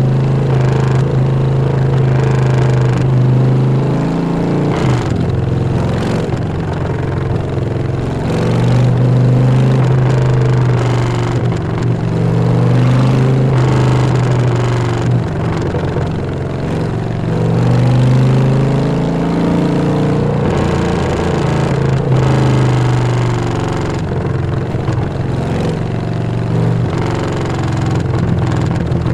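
2018 Harley-Davidson Fat Bob 114's Milwaukee-Eight V-twin running loud through a Vance & Hines full exhaust on the road. The engine note climbs under throttle and drops back several times, as on gear changes.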